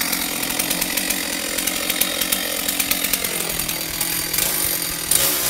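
Chainsaw running steadily, held overhead and cutting into tree branches.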